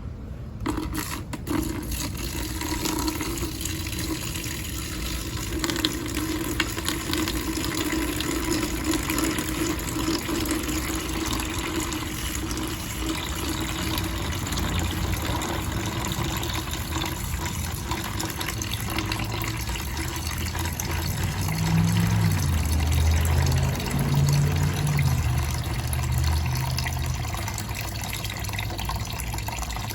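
Liquid rust remover pouring steadily from a one-gallon jug into a plastic bucket of rusty chains. The pour runs a little louder and lower for a few seconds about two-thirds of the way through.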